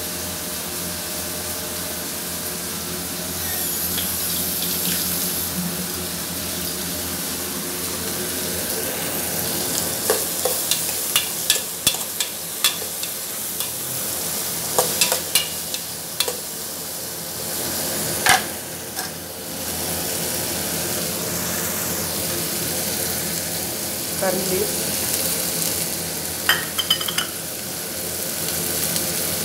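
Tomatoes and spices for rasam steadily sizzling as they cook in a pot on a gas stove. A spoon clinks and scrapes against the pot in clusters through the middle and again near the end.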